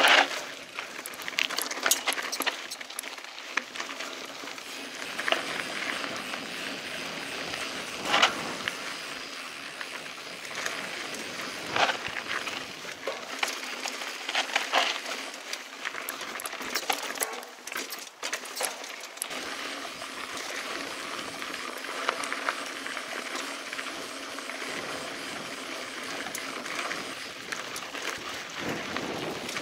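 Mountain bike rolling over a dirt trail: a steady rush of tyre noise with frequent sharp rattles and knocks from the bike as it goes over bumps and rocks.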